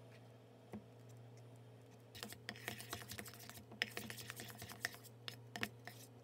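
Metal spoon beating softened cream cheese in a stainless steel bowl: a quick run of clicks and scrapes against the bowl, starting about two seconds in, over a low steady hum.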